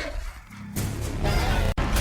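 Film soundtrack music with sound effects: it dips quiet briefly, comes back in sharply, and breaks off in an abrupt edit cut near the end.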